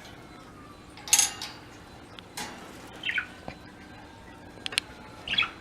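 Pet budgerigars giving short, scattered chirps and calls, the loudest about a second in, with a couple of sharp clinks near the end, typical of birds moving on cage wire or perches.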